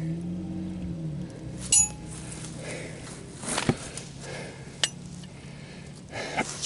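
Metal hand tools clinking against metal, a few separate sharp clinks spread out with a cluster of clanks near the end, over a low steady hum.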